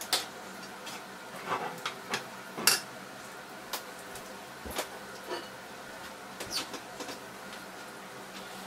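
Egg frying in hot fat in a frying pan, the fat spitting with irregular sharp pops and crackles, about a dozen of them.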